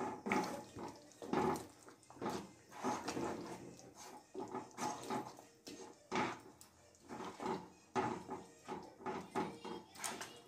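Spatula stirring chicken pieces through thin curry gravy in a kadai: irregular wet scraping strokes, one or two a second.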